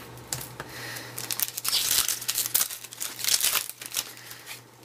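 A baseball card pack's plastic wrapper being torn open and crinkled, in a run of crackles that is busiest from about a second and a half in and fades near the end.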